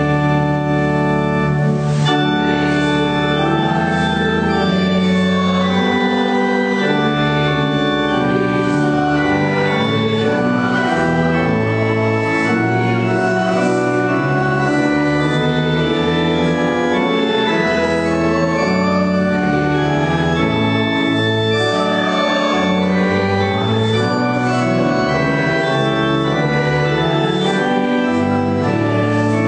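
Church organ playing slow, sustained chords that change every second or two.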